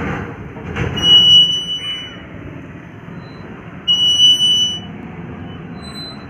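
Dry, rusted metal hinge squealing as a door is swung: two long, high-pitched squeaks, one about a second in and another near four seconds, with a brief knock just before the first.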